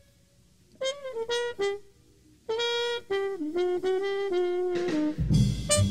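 Music: a solo wind instrument plays a few short notes, then after a brief pause a longer phrase stepping down in pitch. Drums and bass come in about five seconds in.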